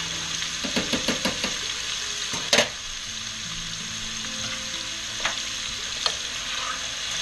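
Cubed chicken frying in bacon grease and olive oil in a skillet: a steady sizzle. A few sharp clicks and knocks sound over it, the loudest about two and a half seconds in.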